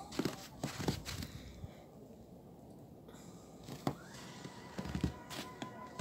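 Scattered soft thumps and scuffs of a person moving and stepping into deep snow. About two-thirds of the way in, a steady whistle-like tone starts and holds.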